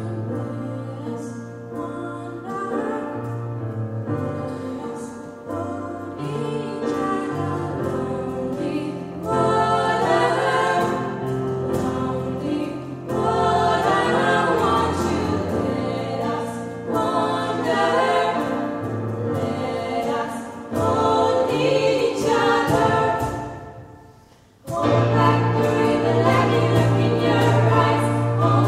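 Three female voices singing a pop song together in harmony into microphones, with steady low notes underneath. Near the end the music drops away for a moment, then comes back in at full strength.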